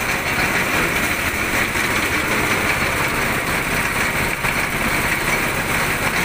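A small engine running steadily, with no change in speed or load.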